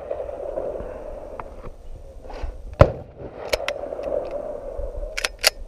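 Sharp clicks of a pistol being handled during the make-ready: one loud snap a little under three seconds in, then a few lighter clicks, including a pair near the end.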